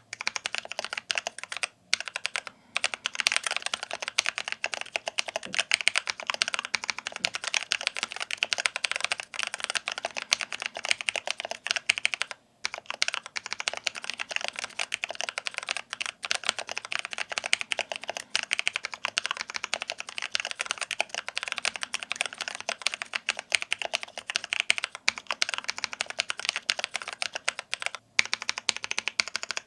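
Fast, continuous typing on a Massdrop x Input Club K-Type aluminium mechanical keyboard, modded with lubed and filmed switches, tuned stabilizers and dampening foam under the switches and between PCB and case: a dense stream of key clacks broken by a few brief pauses.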